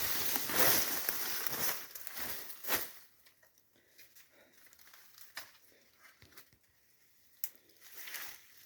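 Dry leaves and brush rustling and crackling underfoot and against the body, dense for the first three seconds, then fading to a few isolated snaps of twigs.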